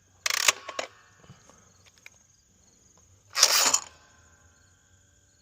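Clay target thrower fired for a test throw: a sharp snap with a few rattling clicks about a quarter second in, then a second short rush of noise about three and a half seconds in. Insects chirr faintly throughout.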